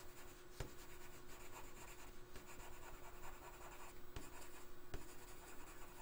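Coloured pencil shading lightly on drawing paper: a faint, continuous scratching with a few small ticks.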